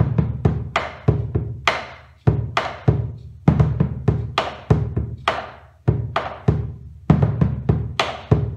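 Bombo legüero played with two wooden sticks, deep strikes on the hide head mixed with sharp clacks on the wooden rim. It is the slow three-beat ritmo tipo gato (zapateo norteño) accompaniment, the basic pattern with the repique norteño added.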